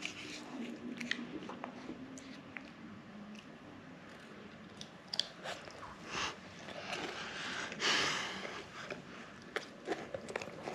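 Close-up eating of a Kinder Joy: small crunches, clicks and scrapes of the plastic spoon and the wafer balls, with a longer, louder rustle about eight seconds in.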